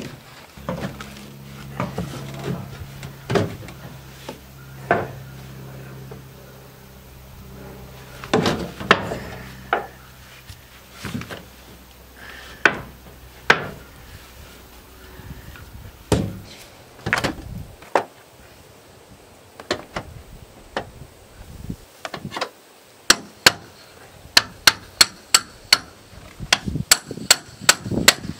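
Hammer and pry bar working sheet-metal skirting and wood trim off a mobile home: scattered knocks and scrapes, with a low steady hum underneath for the first ten seconds or so, then a quick run of sharp hammer blows, about three or four a second, near the end.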